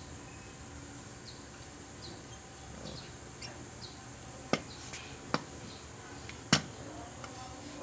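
Three sharp clicks, about a second apart, from the parts of a sewing machine's clutch motor being handled, with smaller ticks over a steady low room hum.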